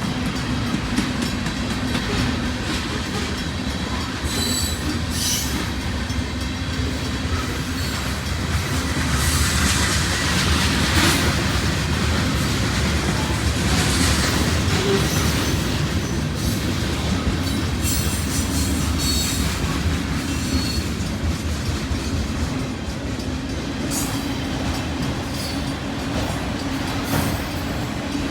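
Freight train rolling past: a steady low rumble, with wheels clicking over the rail joints and a few brief high wheel squeals.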